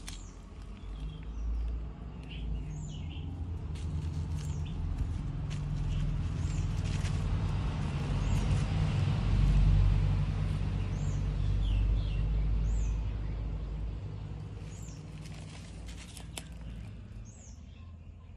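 Small birds chirping, a short high falling call every second or so, over the low rumble of a passing vehicle that builds to its loudest about halfway through and then fades.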